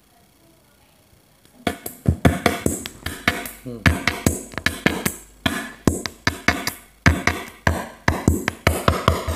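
Music with a steady beat, played from a phone through a Lawega active speaker, starts about a second and a half in. The owner reports this speaker's sound as weak, hoarse and crackling, with one side dead.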